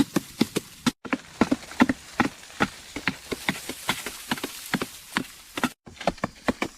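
Rapid, regular chopping strokes of a primitive hand tool, about three to four sharp hits a second, broken twice by brief gaps.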